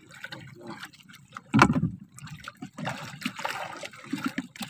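Wet fishing net being hauled by hand over the side of a small boat, water splashing and trickling off it, with a thump on the hull about one and a half seconds in.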